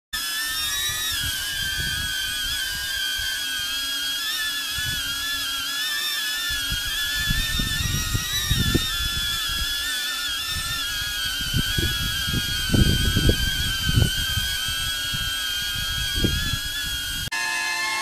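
DJI Avata FPV drone hovering on its original propellers: a high, wavering propeller whine over irregular low rumbling gusts, the rumbles being the loudest parts. Just before the end it cuts abruptly to the drone on new blue propellers, whose whine is lower in pitch.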